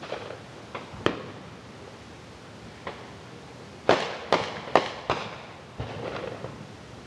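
Fireworks going off out of sight: scattered sharp bangs, each with a short echo. There is a loud one about a second in, then a run of four loud bangs about four seconds in, with softer pops between.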